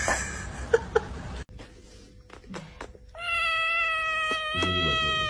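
A cat giving one long, drawn-out meow from about three seconds in, holding steady and dropping slightly in pitch at its end. Before it, about a second in, come two brief sharp sounds.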